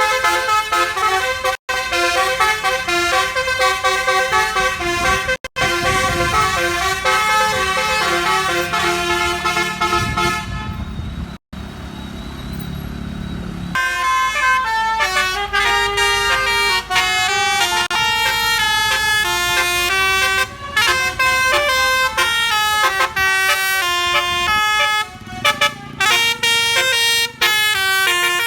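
Telolet basuri musical bus horn playing fast melodies of rapidly stepping notes. Around the middle the horn stops for about three seconds, leaving only a low rumble, then a new melody starts.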